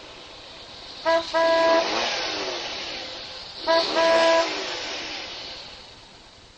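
Vehicle horn honking in a short-then-long pattern, twice, each followed by a fading rush of traffic noise.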